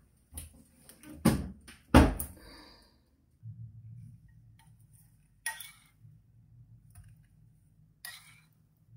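Two loud metallic knocks about one and two seconds in, the second with a short ring: the baking tray going onto the oven rack and the oven door shutting. Later a low hum, and twice a spoon clinks against a ceramic bowl as tomato sauce is scooped out.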